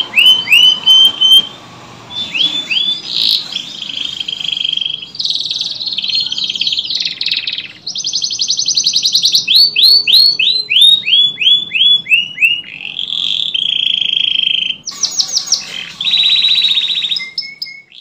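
Domestic canary singing a long, varied song of rapid trills and rolls, including a run of quick downward-sweeping notes at about four a second. This is the kind of recording played as a lure to set silent canaries singing.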